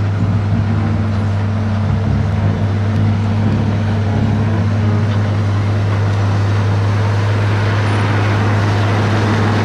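Case 650K crawler dozer's diesel engine running steadily under load with a deep, even drone as the dozer pushes a blade of dirt.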